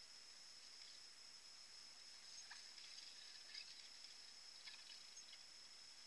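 Near silence: a faint steady high-pitched hiss, with a few faint ticks in the middle.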